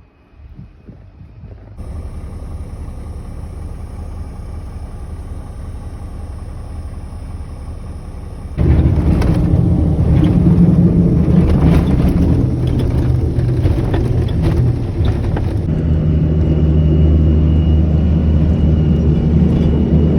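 KAMAZ truck's diesel engine running steadily, coming in about two seconds in and much louder from about nine seconds in.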